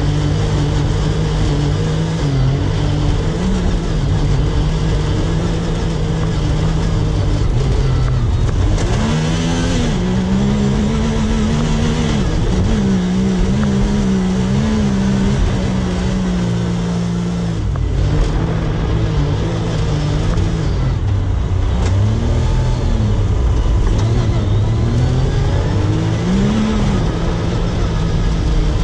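Off-road vehicle's engine running under load while driving through sand. It holds steady at first, revs up about a third of the way in and holds a higher pitch for several seconds before dropping back, with a few short revs near the end.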